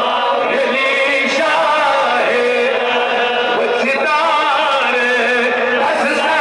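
A man chanting into a microphone in long, melodic held notes whose pitch wavers and bends, the sung style of recitation used in a Friday sermon.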